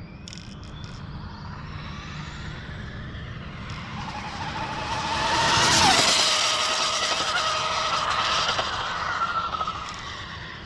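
Arrma Limitless RC car's electric motor whining at full speed on a speed run clocked at about 174 mph. The whine builds as the car approaches and is loudest about six seconds in, where its pitch drops sharply as the car passes. It then fades over the next few seconds.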